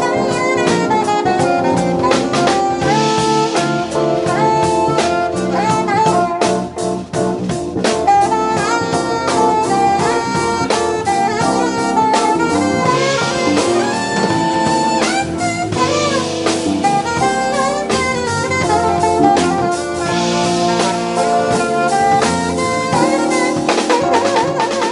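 Live jazz quartet playing: a saxophone leads over a drum kit, electric bass and keyboards.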